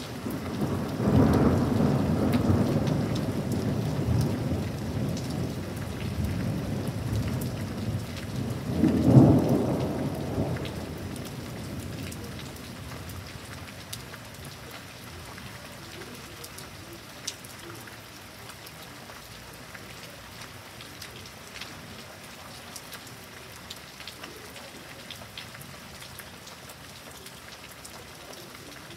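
Thunder rumbling for about ten seconds, starting about a second in, with a louder clap about nine seconds in, over steady rain. After the rumble dies away, steady rain with scattered drips continues.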